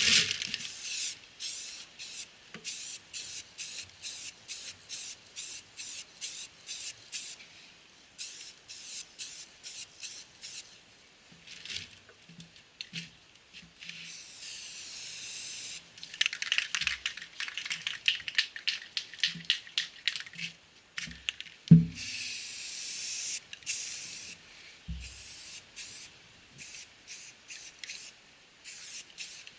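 Automotive primer being sprayed onto a car fender: many short hissing passes, about two a second, with a couple of longer continuous sprays between them. A single knock stands out about two-thirds of the way through.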